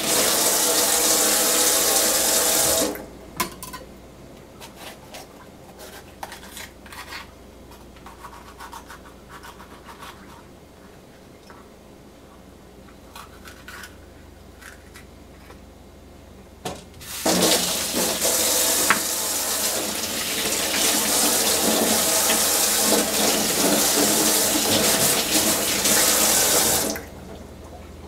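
Kitchen tap running into the sink, shut off about three seconds in. Then soft knife clicks and taps on a wooden cutting board as green peppers are cut. The tap runs again for about ten seconds and stops near the end.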